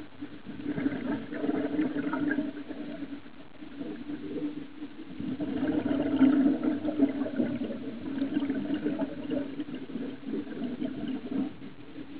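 Underwater sound picked up by a camera in its waterproof housing: a steady low hum with gurgling, noisy swells that rise and fall every few seconds.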